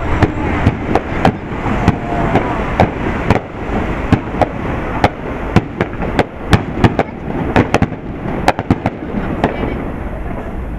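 Aerial fireworks bursting overhead: a rapid, irregular string of sharp bangs and crackles that thins out and stops shortly before the end.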